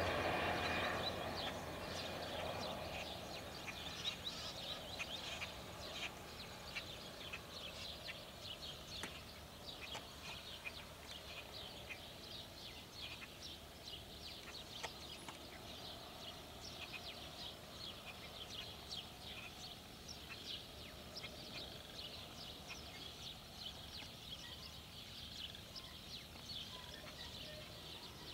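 A crop-spraying airplane's engine fading away over the first few seconds, then faint open-air ambience with many short, high bird chirps.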